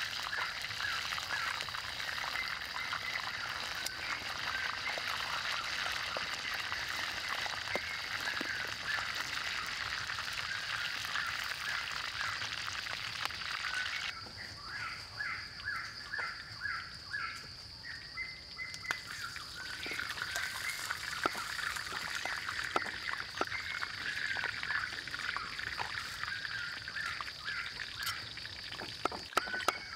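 Hot oil sizzling and crackling as a small crocodile deep-fries in a wok. About halfway in the sizzle stops and chirping animal calls come forward, and near the end a cleaver chops on a wooden block in quick knocks. A steady high-pitched drone sits under it all.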